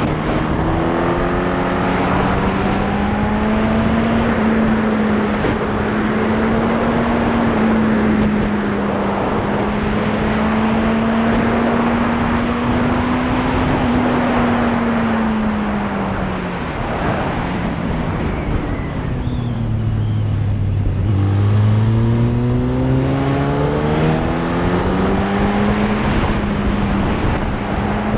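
Yamaha R1's inline-four engine heard from the rider's seat, pulling at steady cruising revs under a rush of wind noise. About two-thirds of the way through, the revs fall away for a few seconds, then climb back up.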